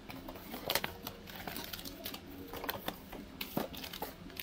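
Scattered light clicks and taps with some crinkling, the sound of small objects and packaging being handled in a small room.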